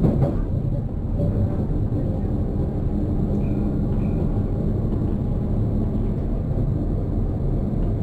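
Steady low running rumble heard from inside a moving tram.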